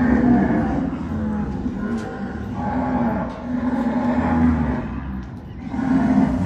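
Herd of white zebu cattle lowing, with several long moos following one another and overlapping.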